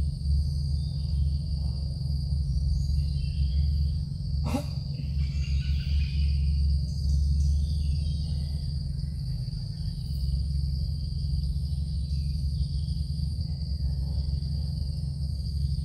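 Insects chirring steadily over a constant low outdoor rumble, with a single sharp click about four and a half seconds in.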